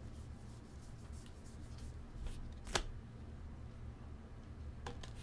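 A stack of glossy chrome baseball cards being flipped through by hand: soft card-on-card slides and flicks, with one sharper click about two and a half seconds in. A low steady hum sits underneath.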